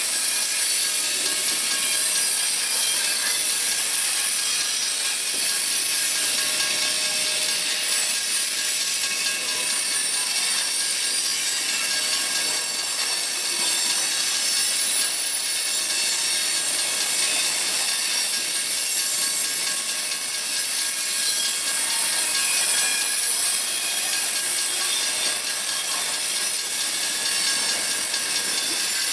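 Freight train's covered hopper cars rolling past at close range: steel wheels on rail giving a steady high hiss with faint squealing tones.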